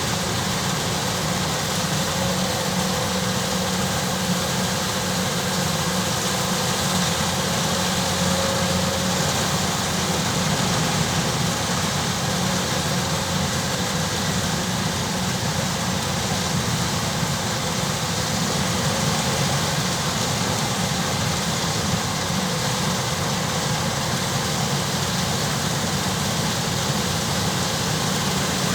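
Kubota DC-105X rice combine harvester running steadily: its diesel engine and threshing machinery make an even, unbroken mechanical din that does not change.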